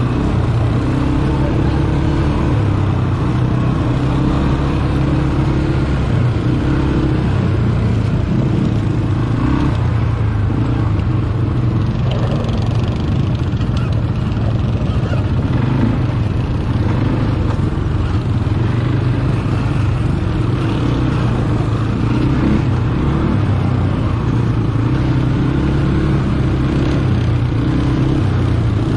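ATV engine running steadily while riding a dirt trail, its pitch rising and falling a little with the throttle.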